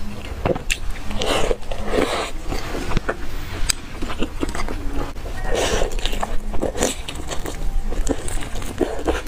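Close-miked wet chewing and slurping of youtiao (fried dough sticks) soaked in soy milk, with many small sticky mouth clicks and a few longer wet slurps.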